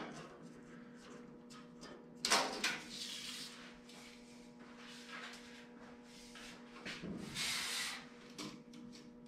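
Handling noises from a tape measure and a pine board: a sharp clack about two seconds in and a brief scraping rustle near the end, with a few small clicks between. A steady low electrical hum runs underneath.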